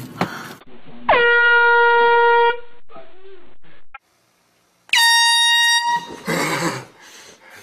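Two loud blasts of a handheld air horn, each dipping in pitch as it starts: a lower one lasting about a second and a half, then after a short gap a higher, shriller one of about a second. The horn is sounded close to a sleeping person to startle them awake, and a short yell follows the second blast.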